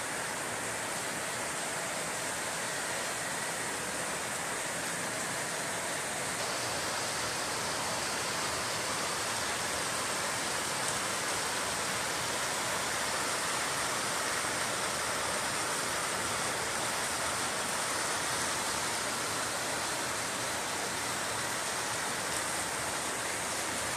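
Heavy tropical rain pouring down in a steady, even hiss.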